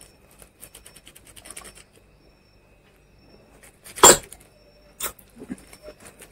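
Faint scratchy handling noises, then a small drinking glass set down onto another glass with a sharp clink about four seconds in, and a second, lighter knock about a second later.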